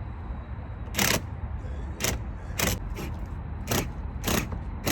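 Five sharp plastic knocks, irregularly spaced about a second apart, as the front lip spoiler is pushed and tapped into place on the bumper, over a steady low rumble.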